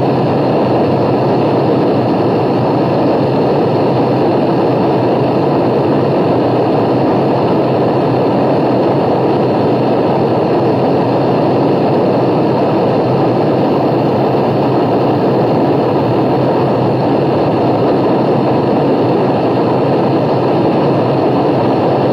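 Aircraft engine droning steadily and evenly throughout, with no breaks or changes.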